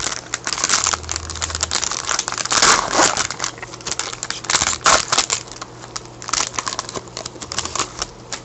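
Foil wrapper of a trading card pack crinkling as it is torn open and handled, in irregular crackly bursts that are loudest about three and five seconds in.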